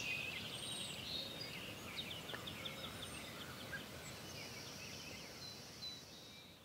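Small birds chirping and trilling over faint outdoor background noise.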